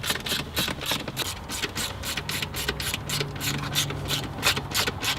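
Ratchet wrench clicking rapidly as it tightens down the shifter base's mounting bolts, about six to eight clicks a second.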